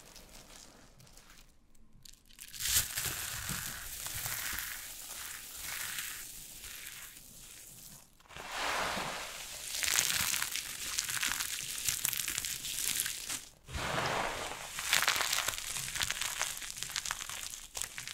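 Crunchy soap with starch being crushed by hand, a dense crackling crunch that comes in several long spells broken by brief pauses.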